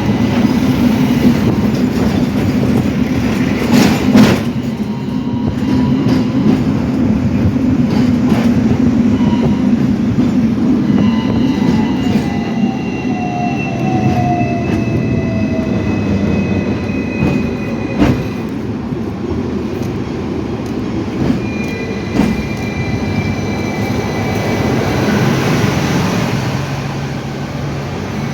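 Hong Kong double-decker tram running along its tracks, with a steady low rumble from motors and wheels. Thin wheel squeal rises in long drawn tones around the middle and again near the end. Sharp knocks sound over the rails, the loudest about four seconds in.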